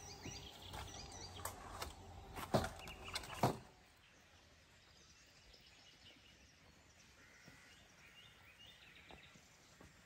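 Rustling and a few sharp knocks as cucumbers and a wicker basket are handled. The sound cuts off abruptly after about three and a half seconds to faint outdoor ambience, with a few bird chirps in the second half.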